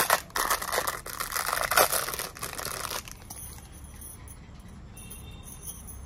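Clear plastic bag crinkling and rustling in the hands as gold-coloured bangles are pulled out of it. The crinkling lasts about three seconds, then gives way to quiet with a faint high ringing near the end.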